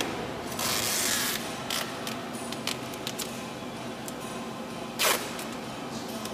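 Packing tape pulled off its roll in short screeching bursts, one lasting about a second near the start and a shorter one about five seconds in, as foam padding is taped around a transformer cabinet. Under it runs a steady low factory hum.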